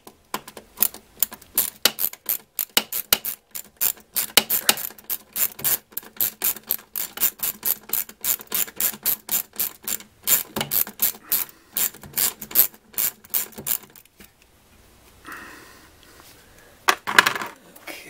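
Ratchet wrench clicking quickly and unevenly as it backs out a 7 mm bolt holding a blower motor to its housing, stopping about three-quarters of the way through, followed by a single louder clatter near the end.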